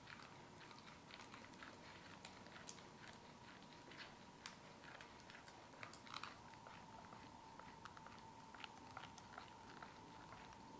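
Faint, irregular soft clicks and wet swishing as a silicone spatula stirs a runny egg-and-cream mixture in a glass bowl, with heavy cream pouring in.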